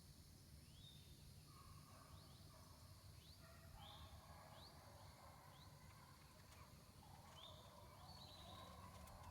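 Faint bird calls: short rising chirps repeated every second or so, with softer warbling beneath, over a low steady background hum.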